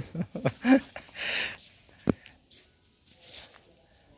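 Children's voices in the first second or so, then a short hiss and a single sharp slap about two seconds in, with little after.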